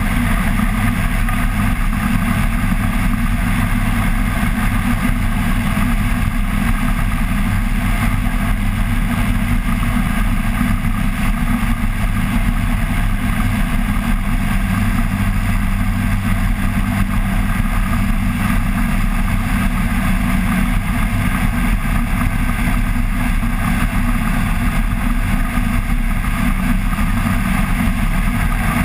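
Flex-wing microlight trike's engine and pusher propeller running at a steady cruise in flight, an unchanging drone mixed with a rush of air over the wing-mounted microphone.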